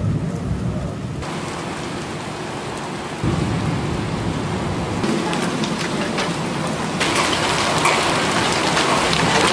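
Heavy rain pouring down in a thunderstorm, with low rumbling underneath. The rain gets abruptly louder in steps, about three seconds in and again about seven seconds in.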